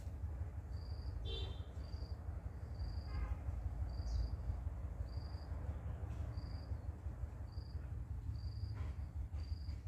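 An insect chirping steadily, a short high chirp about once a second, over a low steady rumble, with two brief pitched calls near the start.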